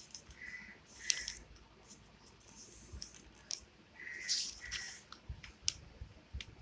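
A folded A4 paper sheet being cut in half: several short, crisp bursts of paper noise with light clicks, about a second in and again twice between four and five seconds.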